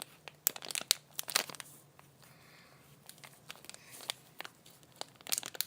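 Crinkling and crackling as a foam squishy toy is handled, in clusters of sharp crackles starting about half a second in and again near the end, with a quieter stretch in between.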